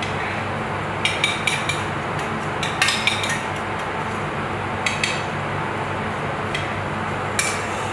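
Metal spoon clinking and scraping against a stainless steel saucepan as food is spooned out, in scattered light clinks over a steady background hum.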